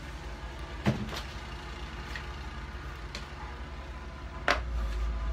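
A few sharp clicks and knocks over a low steady hum, with the low hum getting louder after a knock about four and a half seconds in: handling noise on a phone's microphone.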